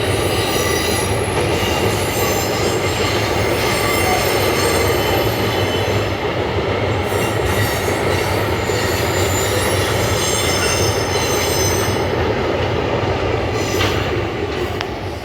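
Train cars rolling past with steel wheels squealing in several high tones over a steady rumble; the squeal dies away and the sound starts to fade near the end.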